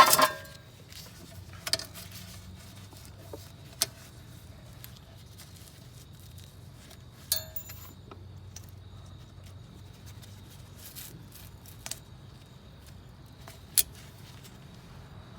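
Scattered sharp metallic clinks and clicks of tools and car parts being handled, about half a dozen spread out, one ringing briefly about halfway through, over a faint low hum.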